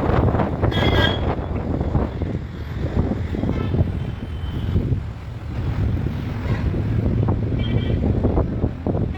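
Road traffic running past, a steady low rumble with wind buffeting the microphone, and a few short high tones cutting through.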